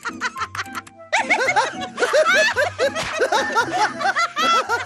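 Two cartoon characters laughing together in quick, giggling chuckles over light background music; the laughter swells about a second in.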